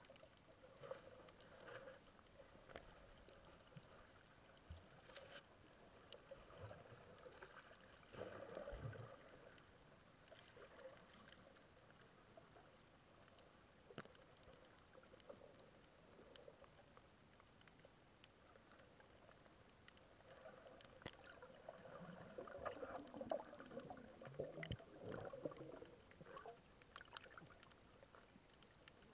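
Faint muffled underwater sound picked up through a submerged camera: water moving against the camera, with scattered sharp clicks. It swells louder and rougher about eight seconds in and again from around twenty-two to twenty-six seconds.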